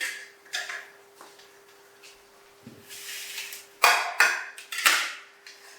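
Clinks and knocks of dishes or utensils being handled, with a few soft knocks early on and a run of louder sharp clatters about four to five seconds in. A faint steady hum runs underneath.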